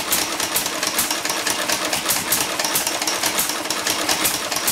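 1937 Stover single-cylinder hit-and-miss stationary engine running flat out with a rapid, even exhaust beat. It fires on every cycle instead of coasting between firings: a worn piece on the governor linkage fails to hold the exhaust valve open, so the governor cannot regulate the speed.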